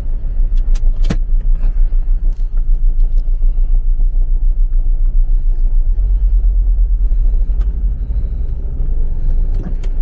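Vehicle driving along, a steady heavy low rumble of engine and road noise. A few sharp clicks come about a second in.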